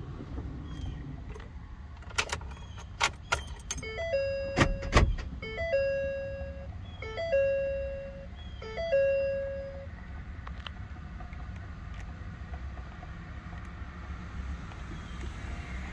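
2015 Ford F250 Super Duty instrument cluster restarting after a configuration write: a few sharp clicks, then four identical warning chimes about a second and a half apart, each about a second long with a brief higher note at its start.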